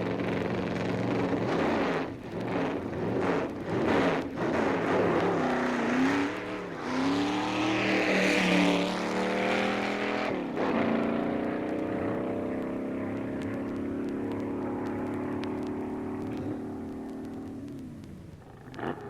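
Drag racing car engine revving with sharp throttle blips, then climbing in pitch as it accelerates, then a long steady engine note that slowly fades away near the end.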